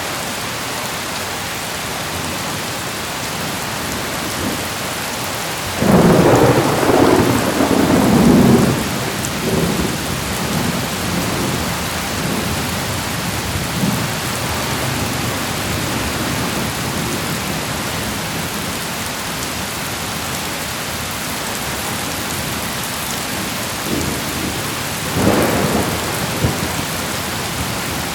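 Heavy rain falling steadily, with a long roll of thunder about six seconds in that rumbles on for about three seconds, and a second, shorter thunderclap near the end.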